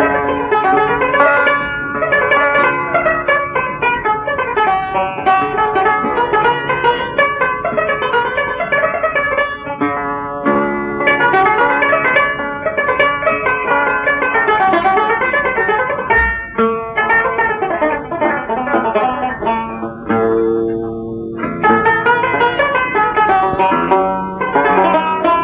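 Algerian chaabi music: an instrumental passage of fast plucked-string melody runs, banjo-like in tone, played by the ensemble.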